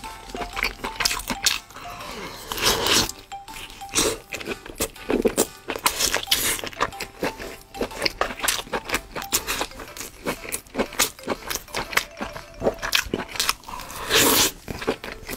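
Close-miked eating: crunchy bites and wet, smacking chewing in quick irregular clicks, with background music underneath.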